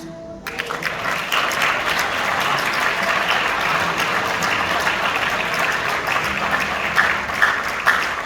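Audience applauding at the end of a song, starting about half a second in as the music stops.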